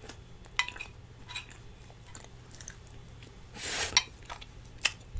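Faint eating sounds: a few light clicks of a fork against a plate, with a short soft rustle about three and a half seconds in.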